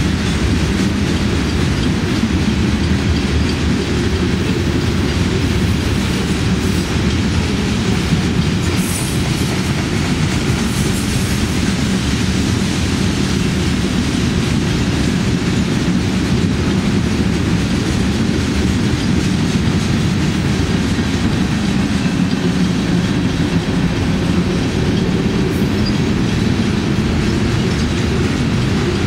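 Freight train cars rolling past: a steady low rumble of steel wheels on the rails.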